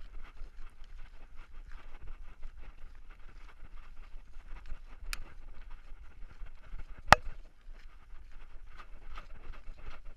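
Handling noise from a dog-collar GoPro as the dog runs: a steady run of rustling and knocking from its movement, with two sharp clicks about five and seven seconds in, the second the loudest.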